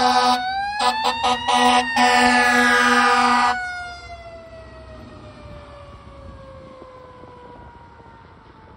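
Fire engine's air horns blasting in several short bursts over its mechanical Q siren, which winds up in rising pitch. The horns cut off about three and a half seconds in, and the Q siren winds down in a long falling wail as the engine passes and draws away.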